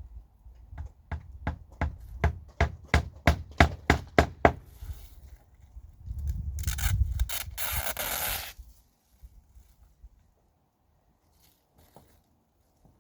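Hand work on wood: about a dozen sharp strikes in a steady run, about three a second, then a rasping scrape of about two seconds.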